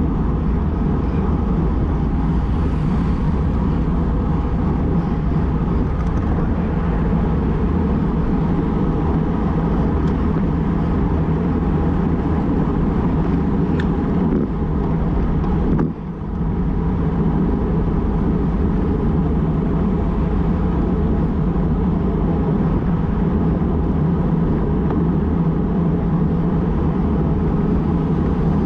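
Steady wind rumble on the microphone of a bicycle-mounted Garmin VIRB action camera moving at about 50 km/h, mixed with road traffic noise. The rumble dips briefly about halfway through.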